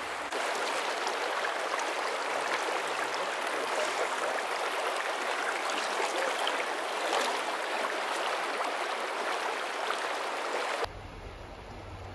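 Steady rushing of a shallow stream's flowing water. About 11 seconds in it cuts to a quieter, duller scene with a low rumble.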